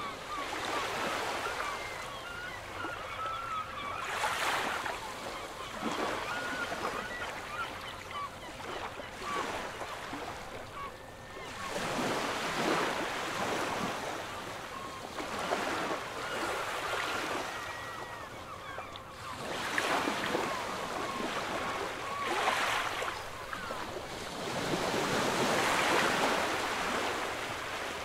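Sea waves washing in swells that rise and fade every few seconds, with frequent short bird calls over them.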